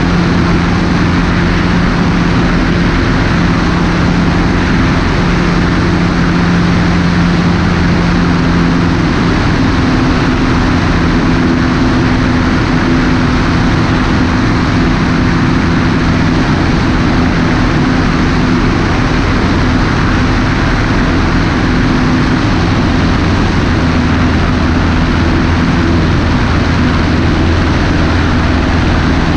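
Cessna 150's four-cylinder engine and propeller droning steadily in flight, heard from a camera outside on the wing with rushing wind.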